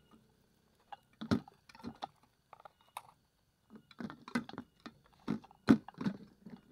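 Irregular clicks, taps and crackles of large grasshoppers landing on and clambering over a clear container, their feet scratching its hard surface. The loudest click comes about a second from the end.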